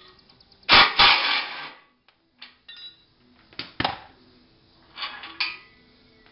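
Cordless power driver running in a burst of about a second on a brush-guard bolt, followed by sharp metallic clinks as tools and bolts are set down on concrete.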